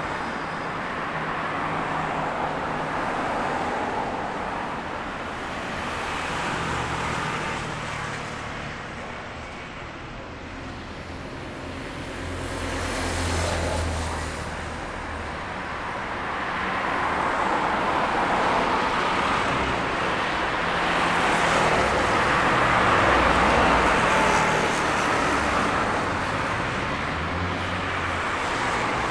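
City road traffic: a steady wash of tyre and engine noise from cars passing, swelling and fading as vehicles go by, louder in the last third, with low engine rumbles from heavier vehicles coming and going and a brief high squeal, like a brake, a little before the end.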